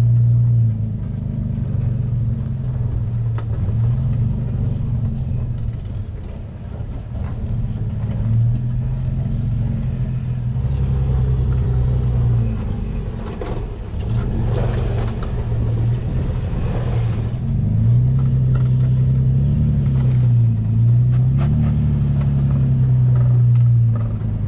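Toyota FJ Cruiser's 4.0-litre V6 engine working the vehicle slowly through deep sand ruts, its note rising and falling as the throttle is fed on and eased off.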